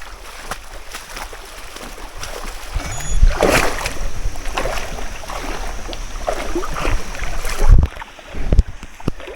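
River water sloshing and splashing as people wade through it about waist-deep, over a steady low rumble. The loudest surges come about three and a half seconds in and again near the end.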